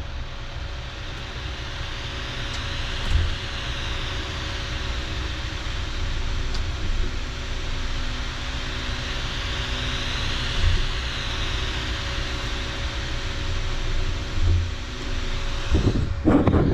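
Elegoo Neptune 3 3D printer running, with a steady fan hum and a motor whine that rises and falls twice as the print head travels, plus a few soft knocks. The owner takes the weird noise on left-to-right moves for the nozzle dragging across the print. A louder rustle comes near the end.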